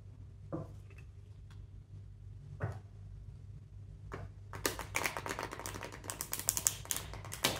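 A deck of tarot cards being shuffled by hand: a few separate card slaps in the first half, then a fast run of crisp card clicks from about halfway in until just before the end.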